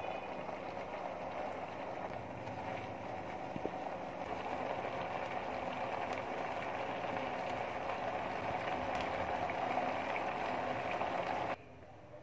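Mutton and potato pieces frying in oil and spice masala in a pan, a steady sizzle that cuts off abruptly near the end. This is the bhuna stage, in which the masala fries until its ghee separates.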